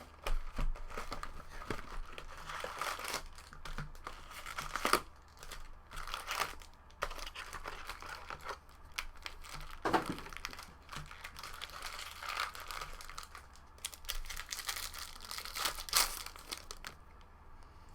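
Plastic wrapping on a box of baseball cards being torn open and crinkled. It is an irregular rustling with a few louder tearing crackles, about 5, 10 and 16 seconds in, and it dies down just before the end.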